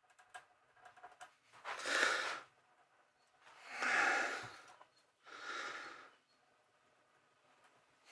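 A person breathing: three long, noisy breaths of about a second each, with faint clicks of a hand threading die and its die stock in the first second.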